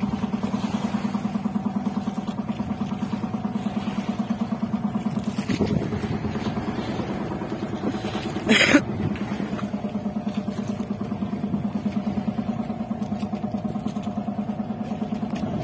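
Engine of an outrigger fishing boat (bangka) running steadily with a rapid, regular pulsing beat. A short loud burst of noise cuts across it once, a little past halfway.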